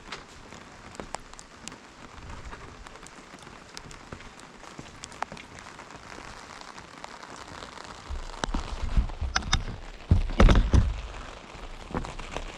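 Rain falling on a surface at night: a steady patter with scattered sharp drips. About eight seconds in it grows louder and deeper for a few seconds with heavy thuds, loudest around ten seconds, then eases back.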